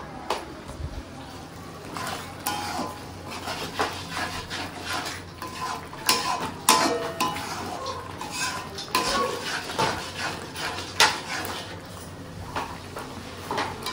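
Metal spoon clinking and scraping against a kadhai while stirring, with scattered knocks of kitchen utensils.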